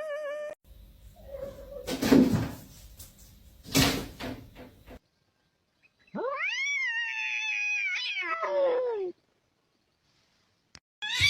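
An animal's long drawn-out call, rising and then falling in pitch, about six seconds in. It comes after a few seconds of noisy scuffling with two loud knocks.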